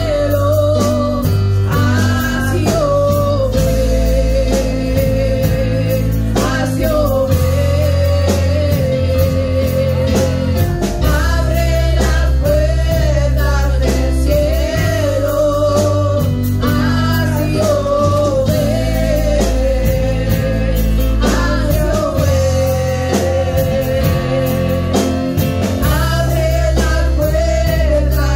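A live worship song: two women singing into microphones over a church band of keyboard, electric guitar and drums, amplified through the PA.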